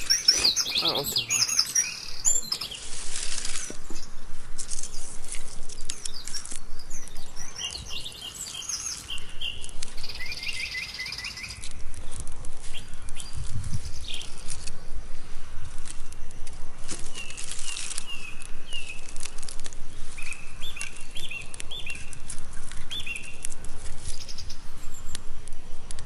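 Small birds chirping and twittering over a wood campfire crackling with quick sharp pops, about four a second in the second half.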